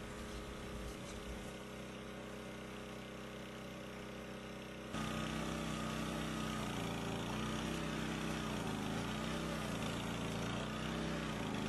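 An engine running steadily, louder from about five seconds in, where its pitch wavers up and down.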